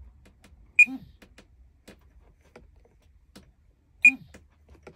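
Flysky PL18 EV transmitter giving two short, high beeps about three seconds apart as its trim is adjusted, with faint clicks of its controls in between.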